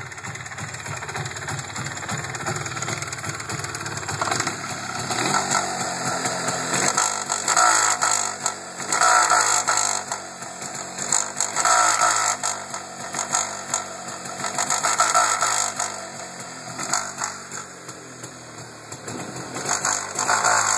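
MZ ETZ 251's single-cylinder two-stroke engine running, first fairly steadily, then revved up again and again, about every one and a half to two seconds, and let drop back toward idle. On the way down from high revs it makes a bad, uncomfortable noise whose cause the owner cannot find.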